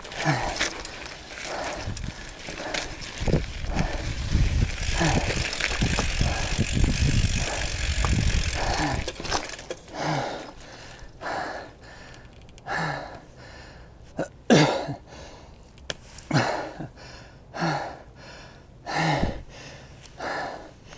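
Mountain bike rattling and clattering over rocky trail, then the rider stops and breathes hard, about one heavy breath a second, out of breath from the climb.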